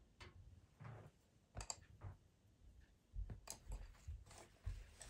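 A few faint, scattered clicks and dull knocks, the sound of pastel pencils being handled and picked out, with a cluster of them in the second half.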